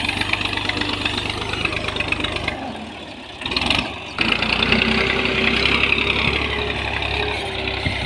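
Tractor engine running steadily while pulling a tine cultivator and levelling plank through the soil. It dips briefly quieter about three seconds in, then picks up again.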